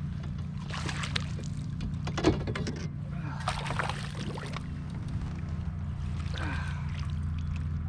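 Water splashing and sloshing in several short bursts as a hooked bass is fought and brought in at the side of a kayak, with a sharp knock about two seconds in, over a steady low hum.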